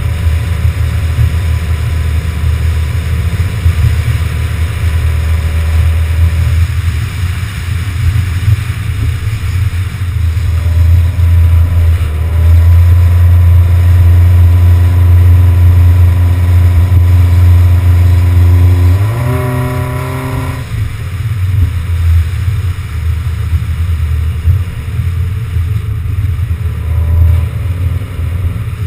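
Car driving on a winding road, heard from a camera mounted on its outside: a steady low rumble of wind and road noise. The engine note climbs gradually through the middle, rises sharply about two-thirds of the way in, then drops away.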